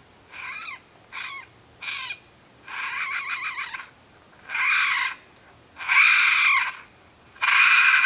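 FoxPro electronic predator caller playing a baby raccoon distress call: a string of squalling, kitten-like cries. The first cries are short, later ones are longer and louder, and one quavers about three seconds in.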